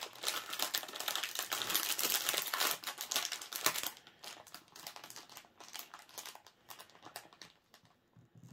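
Thin plastic crinkling and rustling as small bags of diamond-painting drills are handled. It is dense for about four seconds, then thins out to scattered crackles.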